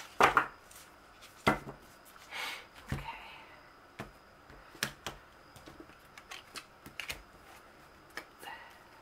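A deck of tarot and oracle cards shuffled by hand and set down on a table: irregular card flicks and slaps, with a few sharper snaps in the first couple of seconds and softer ticks and slides after.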